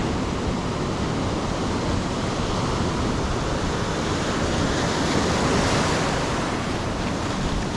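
Ocean surf breaking on a beach: a steady rush of waves that swells slightly about five seconds in.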